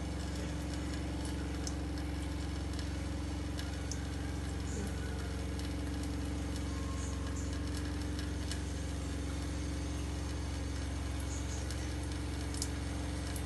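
A steady low machine hum with a constant drone, with a few faint clicks.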